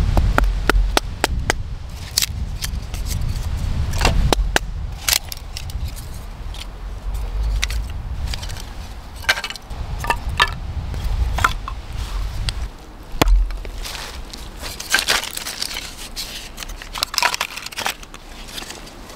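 Hatchet splitting kindling on a wooden stump: a run of sharp chops and cracks as thin sticks split off, some in quick clusters. A low rumble runs under the first two-thirds and fades about thirteen seconds in.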